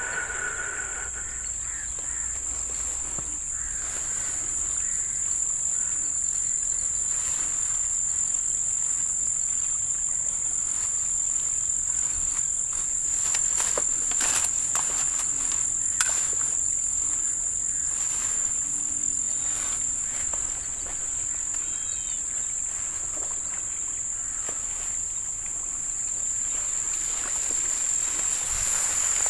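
Steady, high-pitched chorus of insects trilling without pause, with a few sharp clicks about halfway through.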